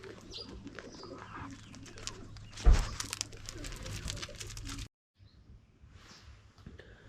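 Doves cooing in the background, with a loud thump about two and a half seconds in. The sound drops out for a moment a little before the end.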